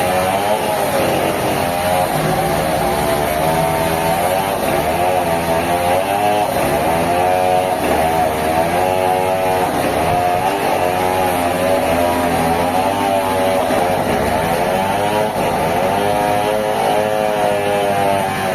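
A sawmill's engine-driven machinery running hard, its pitch repeatedly dipping and climbing back up.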